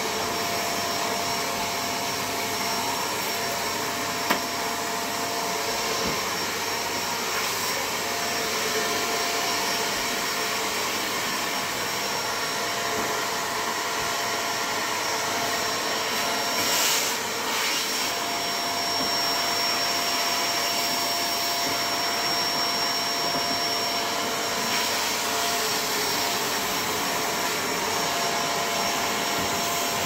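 Shark NV600 Lift-Away upright vacuum cleaner running steadily, its motor noise carrying a fixed whine. There is one sharp click about four seconds in, and a brief louder rush of air at around seventeen seconds.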